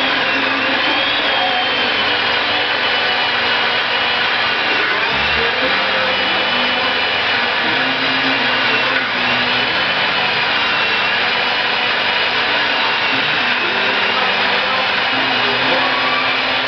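Vintage Mall 11E18 electric chainsaw running steadily while cutting down through a log. Its high motor whine dips briefly in pitch a few times as the chain takes the load.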